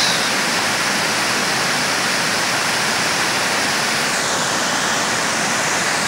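Steady rush of creek water pouring over a low rock-ledge waterfall and a dam spillway, the flow running strong after recent rains.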